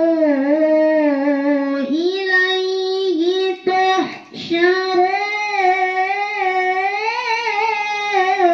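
A female voice reciting the Quran in the slow, melodic tilawah style, drawing out long wavering notes with a quick breath about four seconds in. It is a repeat of the passage taken more slowly in a vocal training drill.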